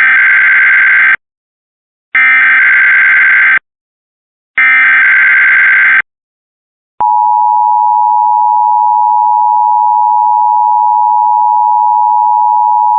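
Emergency Alert System SAME header: three bursts of digital data warble, each about a second and a half long with short silences between them. About seven seconds in, the steady two-tone EAS attention signal starts and holds unbroken, announcing a monthly test.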